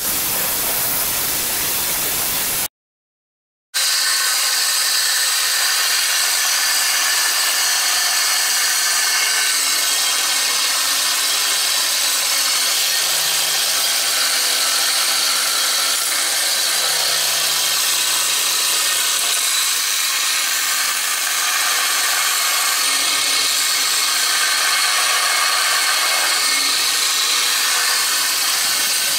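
Belt grinder grinding a steel bar, a steady loud hiss with most of its energy in the upper range, held against the running belt with sparks flying. About three seconds in, the sound drops to dead silence for about a second at an edit, after a short stretch of a different loud noise.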